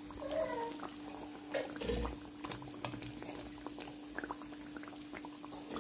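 Battered banana fritters frying in a wok of hot oil: the oil bubbles and crackles with many small pops. A steady low hum runs underneath.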